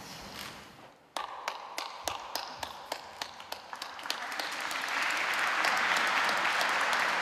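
Wedding congregation applauding: scattered single claps begin about a second in, then swell into full, steady applause from about four seconds.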